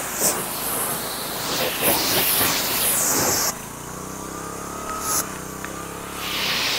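Pressure washer spraying water in a loud hiss; about halfway through the spray stops and only the washer's engine is heard running steadily, then the spray starts again near the end.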